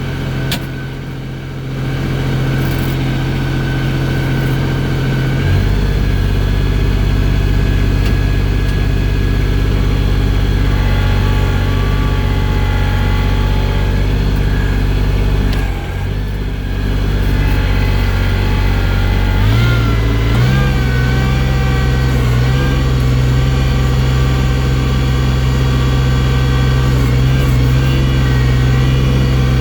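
Engine of a loader-bucket machine running steadily while moving deep snow, its speed stepping up about five seconds in, dipping briefly around sixteen seconds, and rising again around twenty seconds.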